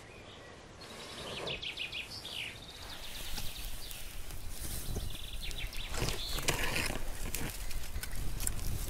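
A dry-grass tinder bundle burning in a fire pit, crackling and popping irregularly with a low rush of flame; the crackling grows denser and louder from about a second in as the flames take hold.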